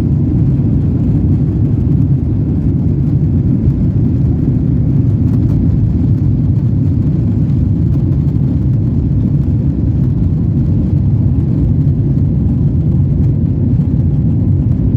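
Steady, loud rumble of a Boeing 777-300ER heard from inside the passenger cabin, with engine and air noise that neither rises nor falls.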